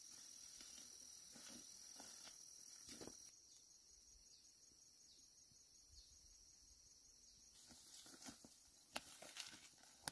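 Faint field ambience with a steady high insect whine; from about eight seconds in, rustling, crackling footsteps through tall dry grass and rice stalks.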